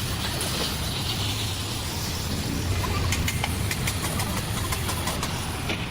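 A machine running with a steady low hum, with a series of light clicks or taps starting about halfway through.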